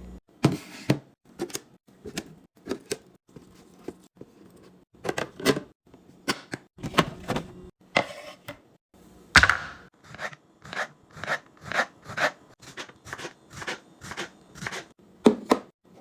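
Irregular clacks, taps and knocks of plastic containers, bottles and packaging being handled and set down while a fridge is restocked, some coming in quick runs of several taps.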